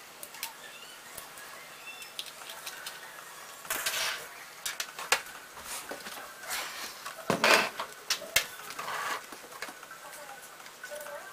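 Scattered clicks, taps and rustles of small plastic and metal laptop parts being handled, with a louder clatter about seven seconds in.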